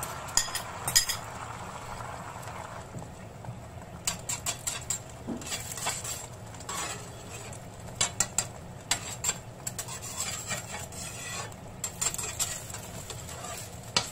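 Beaten egg frying in oil in a cast-iron skillet with a steady low sizzle, while a spatula scrapes and taps against the pan in short repeated clusters of clicks. A few clinks near the start as the egg bowl knocks the pan rim.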